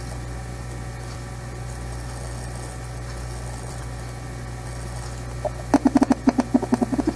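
Stethoscope recording of a patient's chest played back as a teaching example of wheezing: a steady breath noise with a low hum, then near the end a quick run of short low pulses.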